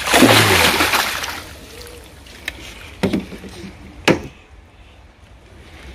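A loud splash of water lasting about a second and a half, followed by a few sharp knocks about a second apart.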